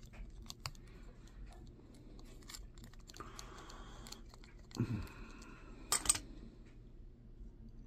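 Small clicks and scraping of a screwdriver tip prying at a component on a printed circuit board, with a short scratchy scrape about three seconds in and one sharp click about six seconds in.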